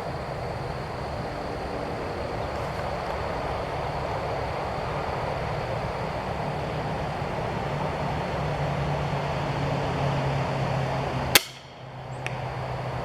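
Steady outdoor background noise with a low hum, broken near the end by the single sharp crack of an Excalibur Matrix 405 crossbow firing a bolt, followed by a faint tick under a second later.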